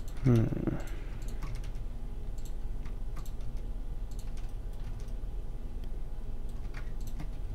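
Computer keyboard keys and mouse buttons clicking irregularly over a low steady hum, with a brief voiced sound from a person about half a second in.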